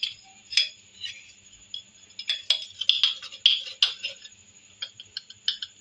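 A metal teaspoon clinking and tapping against glass: a scatter of light clicks, thickest between about two and four seconds in, as black salt is measured out and added.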